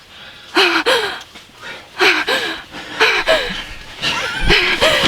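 A woman gasping and whimpering in short voiced breaths, about one a second, each rising then falling in pitch: near-hyperventilating with excitement right after shooting a turkey.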